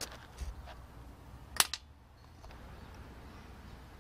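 Small metallic clicks and taps from tweezers working a lever on a Sony OA-D34V floppy drive's eject mechanism, with one sharp, louder double click about a second and a half in.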